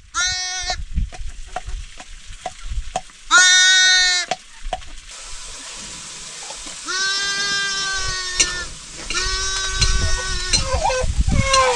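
A lamb bleating four times. Two short, quavering bleats come in the first four seconds, the second of them the loudest, followed by two longer, steadier bleats.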